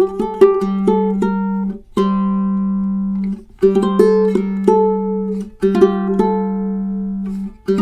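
Tenor ukulele with a figured koa back and sides and a redwood top, played in improvised melodic phrases over a held low note. Four phrases each cut off abruptly, about two seconds apart.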